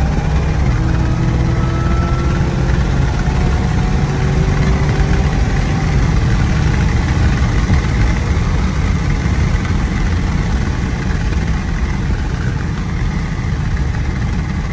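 Supercharged Chevrolet Camaro SS 6.2-litre V8 accelerating hard, heard from inside the cabin. The engine note climbs, drops at an upshift about a second in and climbs again, then merges into a steady rush of engine, wind and road noise.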